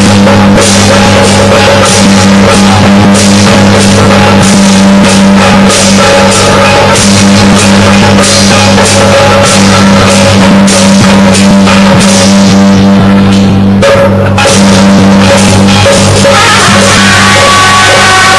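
Very loud, overdriven music with heavy drumming and dense percussion hits over a steady low drone. A higher steady tone comes in near the end.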